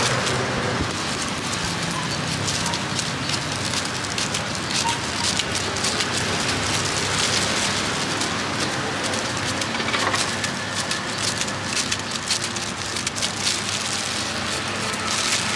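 Knife cutting through firm, peeled fruit held in a plastic bag, a dense crackle of crinkling plastic and blade strokes over a low steady hum.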